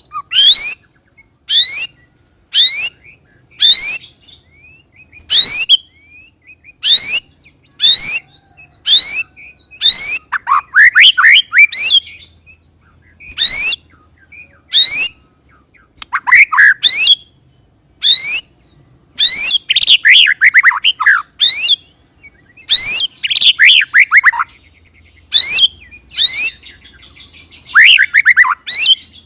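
White-rumped shama (murai batu) singing loudly: a fast string of short, sharp, high whistles that sweep upward, about one a second. Several times it breaks into quick runs of notes that fall in pitch, the rolls prized in shama song.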